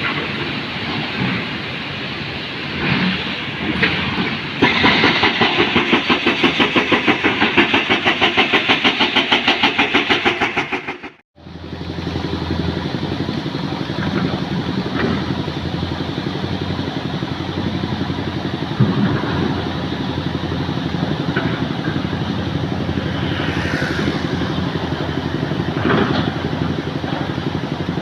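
Motor vehicle engines running. For the first part, a loud rapidly pulsing engine noise; after a sudden break about eleven seconds in, a steady engine hum, as of an engine idling.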